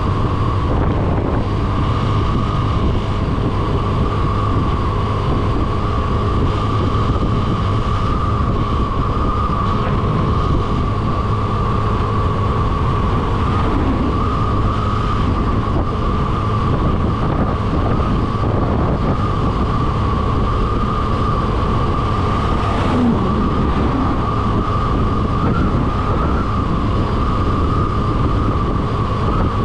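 Motorcycle cruising at a steady speed: an even engine drone mixed with wind noise on the microphone, with no gear changes or revving.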